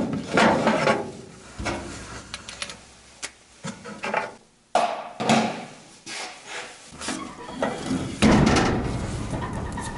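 Irregular rubbing, scraping and knocks, as of hands and tools handling metal parts, with a low steady hum underneath in stretches.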